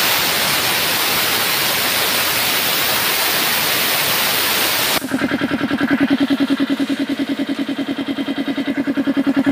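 Compressed air hissing loudly out of a Swan air compressor's tank through an opened valve, the tank pressure falling. About five seconds in the hiss stops abruptly, and the compressor's two-cylinder pump and electric motor run with a rapid, steady chugging pulse.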